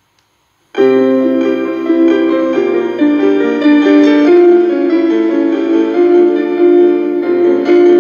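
Instrumental music begins about a second in: a keyboard intro of held chords that change every second or so, with no singing yet.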